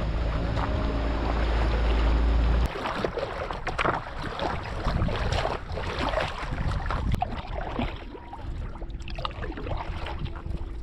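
Lake water splashing and sloshing as a stand-up paddleboard is paddled, with irregular short splashes. A low wind rumble on the microphone covers the first few seconds and cuts off suddenly.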